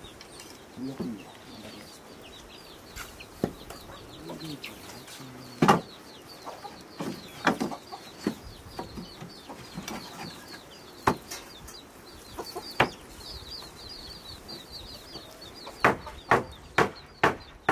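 Claw hammer knocking on old wooden boards: scattered single blows, the loudest about six seconds in, then a quick run of several blows near the end. Chickens cluck now and then, over a high chirping that repeats steadily throughout.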